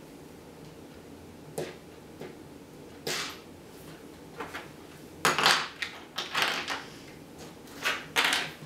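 Coins being handled on a table: a few separate clicks and clinks, then a busier run of clinking and sliding about five seconds in, and two more clinks near the end.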